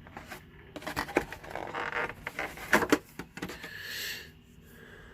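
Handling of product packaging during an unboxing: rustling and a quick series of clicks and taps, with a brief scraping hiss near the end.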